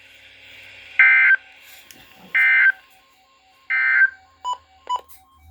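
Emergency Alert System end-of-message signal: three short bursts of warbling digital SAME data tones, about a second and a half apart, closing a National Weather Service severe thunderstorm warning.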